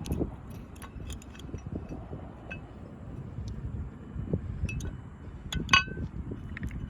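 Scattered light clicks and clinks of metal tools and parts being handled, with one louder, ringing metallic clink near the end.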